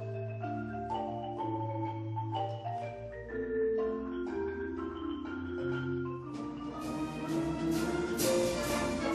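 Live concert music from an orchestral ensemble: sustained pitched chords with a mallet-percussion colour, swelling to a fuller, brighter sound about two-thirds of the way through.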